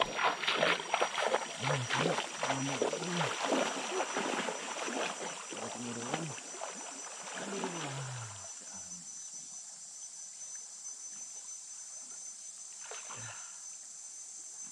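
River ambience from a drifting kayak: water splashing and pattering for the first eight seconds or so, with several low, falling hoots among it, over a steady high insect drone that carries on alone once the splashing stops.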